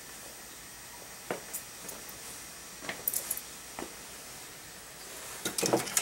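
Steady hiss of an old desktop computer's fans running, with scattered light clicks and knocks from handling things on the bench and a louder cluster of knocks near the end.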